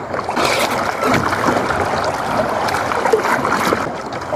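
Seawater sloshing and splashing close to a diver at the surface, steady with a few sharper splashes.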